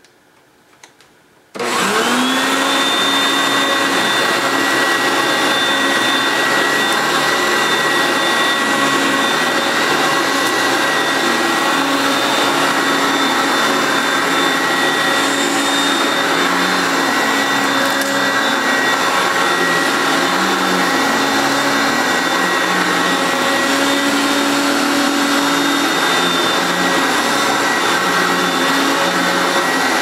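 Hoover Concept One upright vacuum cleaner switched on about a second and a half in, its motor spinning up within half a second to a steady whine, then running steadily while it moves over carpet.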